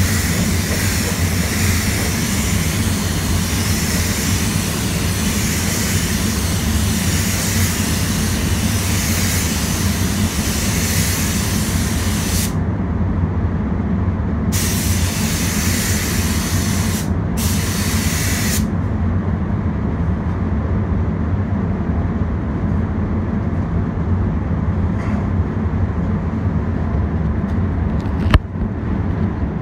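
HVLP spray gun hissing as it sprays clearcoat, over a steady low rumble of booth ventilation. The hiss stops about twelve seconds in, comes back twice in short passes, then stops, leaving only the rumble. There is one sharp knock near the end.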